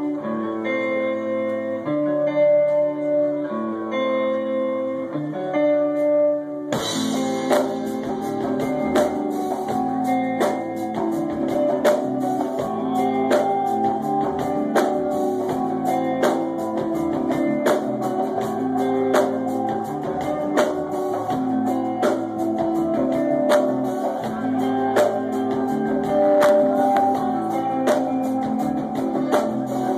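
Live band playing music. It opens with held notes changing about once a second, then about seven seconds in the drums and the rest of the band come in together, keeping a steady beat.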